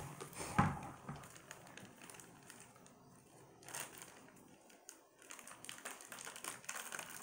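Faint crinkling and rustling of a small black wrapper being picked and torn open by hand, with scattered light clicks.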